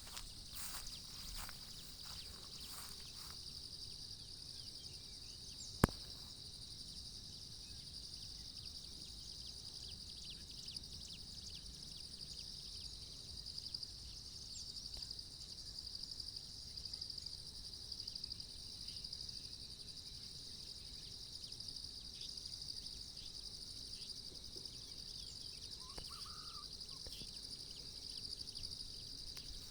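Steady, high-pitched insect chorus with a fine pulsing trill that never stops. A single sharp click about six seconds in.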